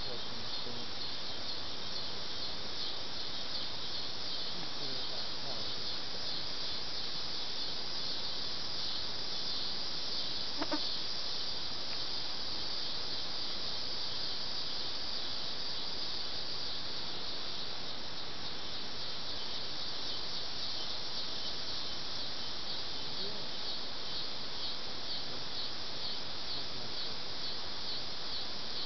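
Steady chorus of summer insects, a high, finely pulsing drone that keeps an even level throughout. A single short knock stands out about a third of the way in.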